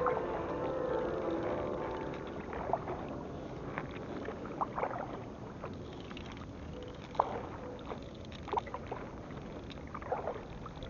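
Canoe paddling on the sea: short sharp paddle splashes every second or so over a steady wash of water.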